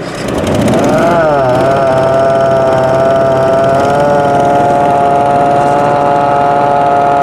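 Vacuum unit's Briggs & Stratton Vanguard 18 hp V-twin engine, just started and driving a Gardner Denver vacuum pump. The pitch rises and dips over the first two seconds, then settles into a steady, high whine over the engine's running.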